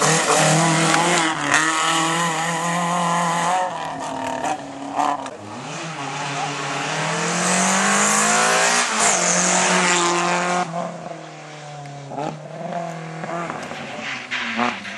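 Hatchback rally cars at full throttle, one after another: a first engine held at high revs, then a second engine note climbing in pitch as the car accelerates closer, with a loud hiss of tyres at its peak before it drops away suddenly about two-thirds through.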